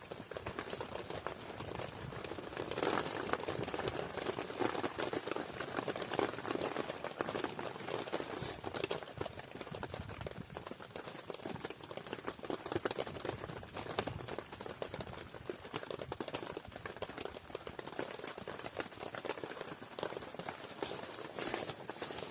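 Campfire burning, with dense, irregular crackling and popping.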